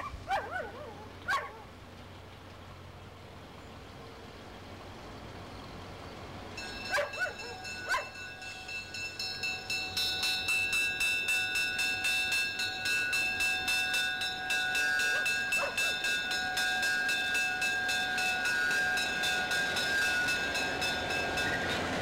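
A railroad grade-crossing bell starts ringing about seven seconds in, its rapid, even strikes and ringing tones growing louder a few seconds later and carrying on steadily: the crossing warning that a train is approaching. A dog barks a few times near the start.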